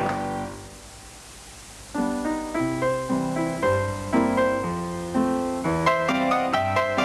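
Background piano music: a chord fades away, then after a short lull a melody starts about two seconds in and runs on with quicker notes near the end.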